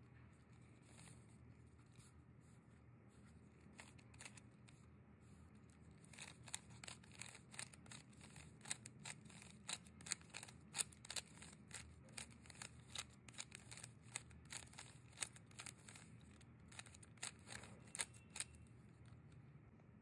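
3x3 Rubik's cube being twisted by hand: a quick run of sharp plastic clicks as its layers turn, starting about six seconds in and stopping shortly before the end.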